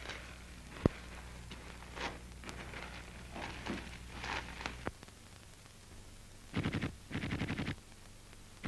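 Faint scattered cracks and crackle over a steady low hum, with one sharp crack about a second in. Near the end come two short bursts of rapid machine-gun fire.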